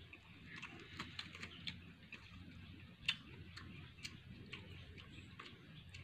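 Faint, irregular clicks and crackles from fingers pulling sticky jackfruit bulbs apart, the sharpest about three seconds in, over a low steady background hum.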